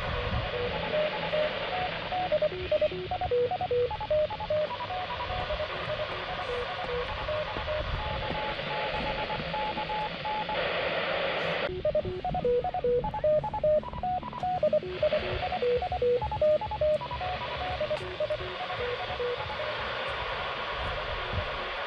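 A handheld radio receiving a hidden fox-hunt transmitter: a tune of short beeping tones at changing pitches over a hiss of static, with the static swelling briefly about halfway through. The balance of transmitter tone against off-axis static is what the hunter listens to in order to find the direction of the transmitter.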